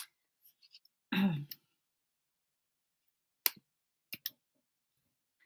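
A few sharp single clicks from computer controls as the slides are changed: one at the start, one about three and a half seconds in and a quick pair just after. A short murmured vocal sound comes about a second in.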